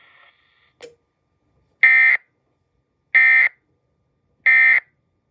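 Emergency Alert System end-of-message data bursts: three identical short, shrill, warbling digital bursts about 1.3 seconds apart, sent after the spoken alert to mark its end. A faint click comes just before the first burst.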